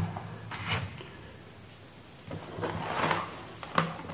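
Handling noises of a power adapter and its cords: a few clicks and knocks with a short rustling scrape about two seconds in as the adapter brick and cables are moved across the bench.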